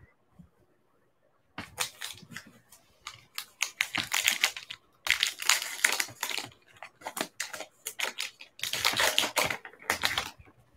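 A trading card pack's wrapper being torn open and crinkled by hand: a fast, uneven run of sharp crackles that starts about a second and a half in and goes on to the end.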